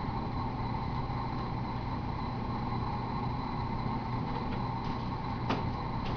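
Steady background hum and hiss, with a single faint click about five and a half seconds in.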